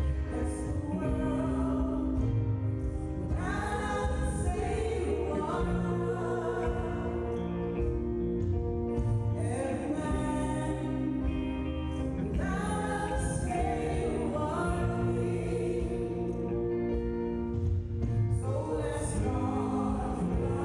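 Gospel song: a female vocalist singing with praise-band accompaniment and a steady bass line.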